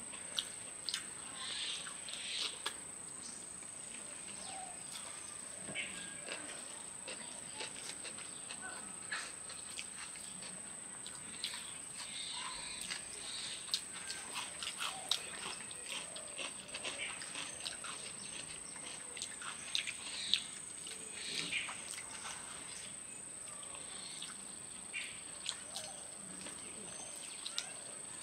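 Close eating sounds: fingers mixing biryani rice on banana leaves, chewing and lip smacks, heard as many small irregular clicks and smacks. Behind them, a steady high-pitched insect drone, like crickets.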